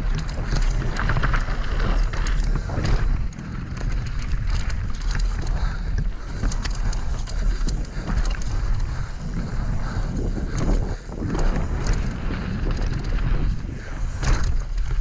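Wind buffeting the microphone of a fast-moving downhill mountain bike, over a constant rattle and clatter of tyres on a stony dirt trail and the bike's chain and frame knocking over bumps.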